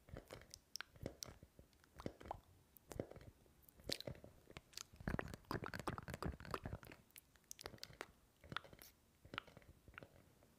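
Faint, close-miked ASMR eating sounds: irregular crunchy clicks and nibbling noises while a rubber shark hand puppet's mouth works at the microphone. They grow denser and louder about halfway through.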